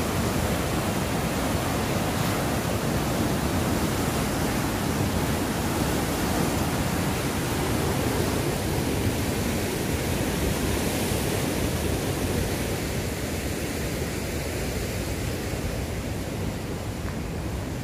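Huka Falls on the Waikato River: a powerful, steady rush of white water, easing a little near the end.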